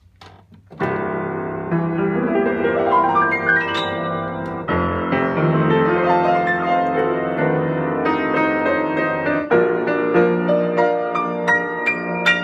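Rebuilt 6'6" Yamaha G5 grand piano, with new hammers and new strings, being played: full chords and a rising run up the keyboard, starting about a second in, with new chords struck about halfway and again near the end.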